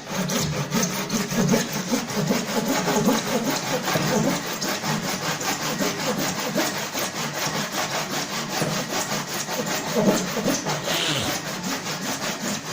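A saw cutting through a lock with fast, even, rhythmic strokes.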